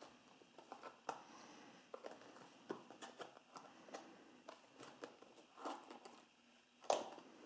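Cardboard smartphone retail box being turned over and opened by hand: scattered soft scrapes, rubs and taps of the cardboard, with a sharper snap of the box flap near the end.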